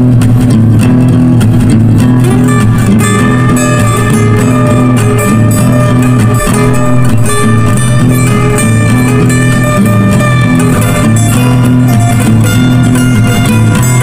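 Background music played on guitar, plucked strings over a steady low bass line.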